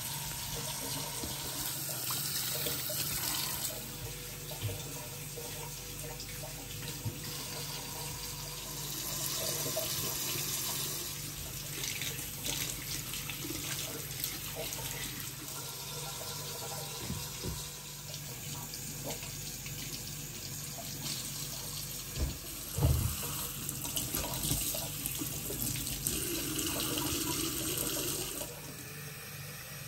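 Kitchen tap running into a stainless steel sink while vegetables are rinsed by hand under the stream, with splashing water. A few dull knocks sound, the loudest about three-quarters of the way in.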